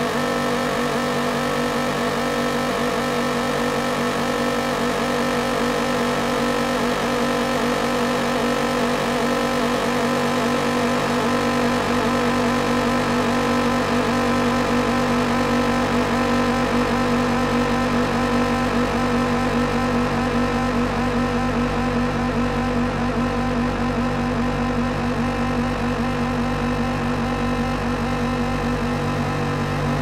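An engine running steadily at a constant speed: a continuous hum made of several steady tones, with no revving or change in pitch.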